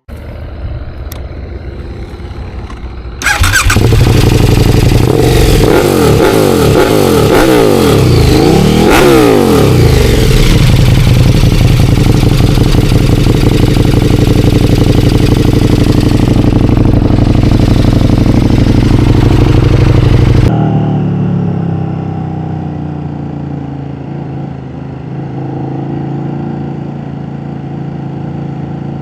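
KTM 1290 Super Duke R's V-twin engine running. It gets much louder about three seconds in, its pitch rising and falling repeatedly for several seconds as it revs, then holds steady and loud. It drops to a lower level about twenty seconds in.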